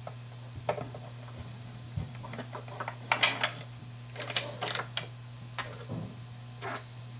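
Irregular clicks, knocks and scrapes of an aluminium curtain track with plastic end fittings being handled on a wooden table while a toothed drive belt is fed through it; the loudest cluster comes about three seconds in. A steady low hum runs underneath.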